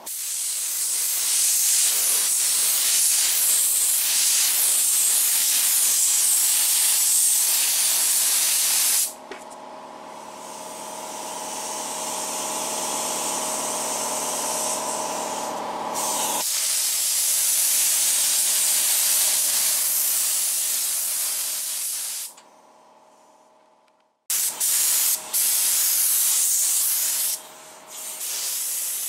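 Paint spray gun hissing as it sprays high-build primer, in long passes that stop and start as the trigger is released. In the middle stretch the hiss gives way to a softer, steadier sound with a hum.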